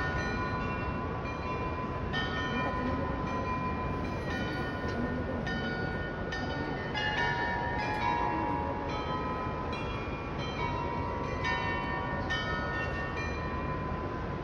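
The 43-bell carillon of the Munich Rathaus-Glockenspiel playing a tune, one struck bell after another, each ringing on and fading, over a steady background rush.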